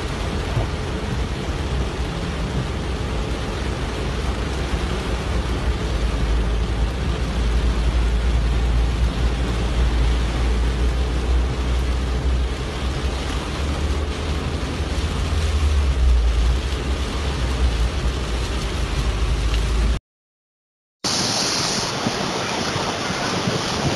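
Heavy rain hitting a car's windshield and body, heard from inside the car, over a steady low rumble. About twenty seconds in the sound drops out for a second, then a torrent of floodwater is heard rushing down a street.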